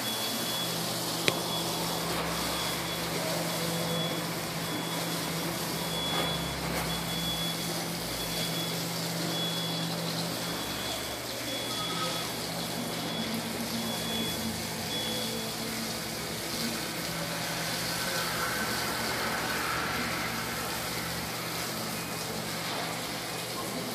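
A steady low engine hum with a high beep repeating at an even pace, which stops about fifteen seconds in, over a constant hiss.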